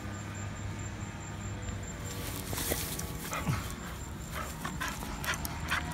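Jack Russell terrier panting in short quick breaths as it trots, from a couple of seconds in almost to the end.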